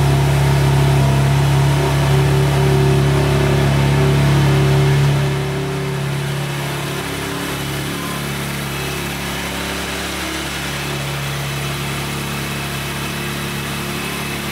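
BMW M4 G82 Competition's twin-turbo inline-six (S58) running just after starting: a raised, louder idle for about five seconds, then it settles to a lower, steady idle. It runs very quietly, the sign of a healthy engine after the crash.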